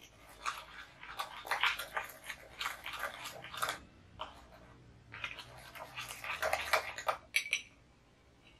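Metal spoon beating a thick instant-coffee, sugar and water mixture by hand in a ceramic bowl: rapid, irregular scraping and clicking against the bowl in two spells with a short lull about four seconds in, and a brief ring of the spoon on the bowl near the end.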